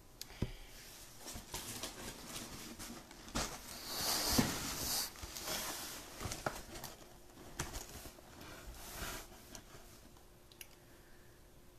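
A large cardboard shipping box being handled and moved close to the microphone: scraping and rustling with scattered knocks, loudest about four seconds in.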